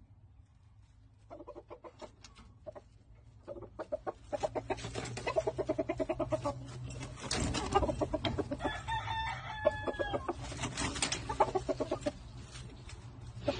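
Kelso gamefowl, a rooster and hens, clucking: a fast run of short clucks starts about a second in and gets busier and louder from about four seconds, with a couple of higher drawn-out calls around nine to ten seconds.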